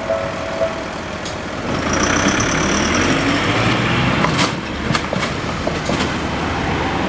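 A heavy road vehicle running over the railway level crossing: a steady engine rumble that grows louder about two seconds in, with a high whine and then a few sharp knocks.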